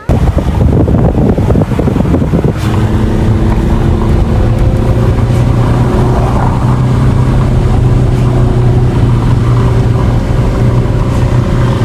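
Motorized remote-controlled lifeguard rescue buoy running through pool water. Rough wind and water noise at first; from about two and a half seconds in, a steady motor hum rises above it.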